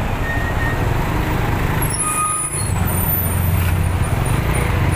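Vehicle engine running steadily with road and traffic noise, heard from on board while riding in traffic; the low hum grows a little stronger about halfway through.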